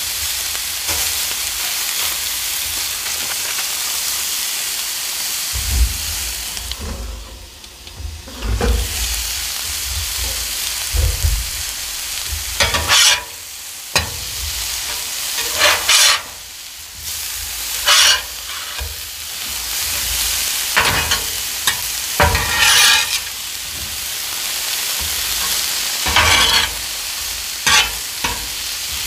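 Sliced potatoes and onions sizzling on the steel cooktop of a 30-inch Blackstone griddle, a steady frying hiss. In the second half a metal spatula scrapes across the griddle top several times, stirring and turning the vegetables.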